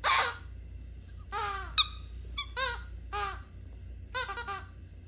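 Rubber squeaky toy being bitten by a dog: a loud, hissy burst at the start, then a run of about five short squeaks with a wavering pitch.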